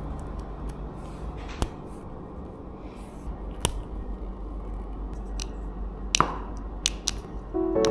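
Lego bricks being handled and pressed together: a few sharp, scattered plastic clicks and taps, the loudest about six seconds in, over a low steady hum.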